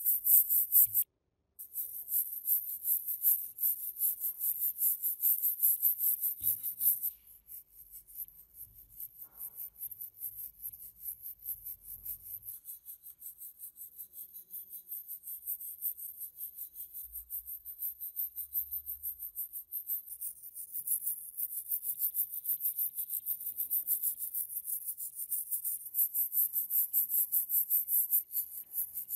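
Small steel wire brush scrubbing rust off a cast-iron meat grinder body in brisk repeated strokes, a scratchy hiss. The sound breaks off briefly about a second in and is quieter through the middle, where a flat metal scraper works the rusty surface.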